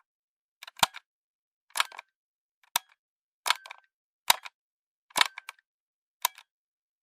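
Cassette deck's mechanical transport buttons being pressed and released, a sharp plastic-and-metal clack with a smaller follow-up click, seven times at roughly one-second intervals.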